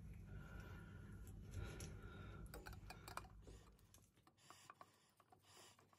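Near silence: a faint low hum that dies away about halfway through, then a few faint light clicks and taps.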